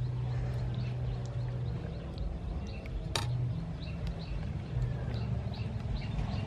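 A steady low hum with short, repeated high chirping ticks over it, and one sharp clink about three seconds in, a metal ladle knocking against a serving bowl.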